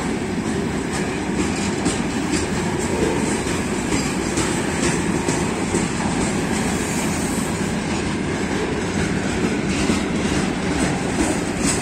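Railway tank wagons of a long freight train rolling past close by: a steady rumble of wheels on rail with repeated irregular clicks and knocks from the wheels.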